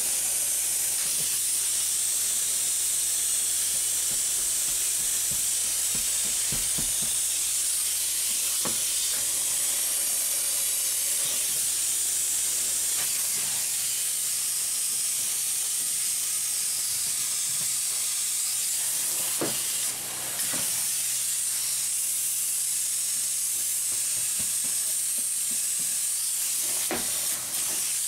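Spray foam gun hissing steadily as it sprays foam insulation into a wall cavity, dipping briefly twice near the end.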